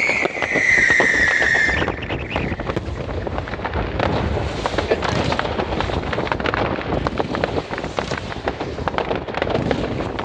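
New Year's Eve fireworks: a whistling firework's tone falls slowly over the first two seconds, then gives way to dense, rapid crackling and popping of bursting shells.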